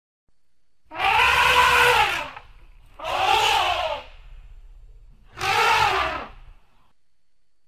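Elephant giving three harsh, screaming calls, each lasting about a second and rising then falling in pitch, with short quiet gaps between them.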